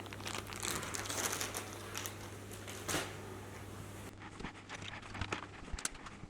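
Plastic bags crinkling and rustling as small parts are handled and set down, with a few light clicks and knocks, over a steady low hum.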